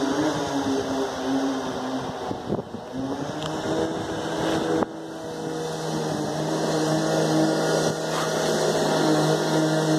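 An engine running steadily. Its pitch dips about two and a half seconds in, then settles at a steady new pitch after about five seconds.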